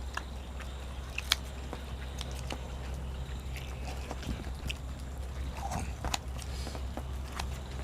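A person chewing and biting food with scattered short clicks and mouth smacks, the sharpest about a second in, over a steady low hum.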